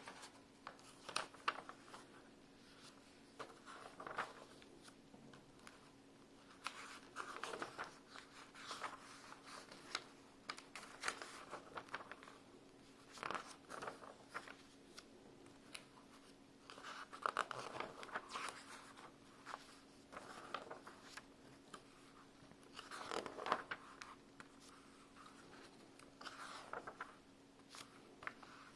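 Magazine pages being turned by hand: a series of soft paper swishes and rustles every one to three seconds, at an irregular pace.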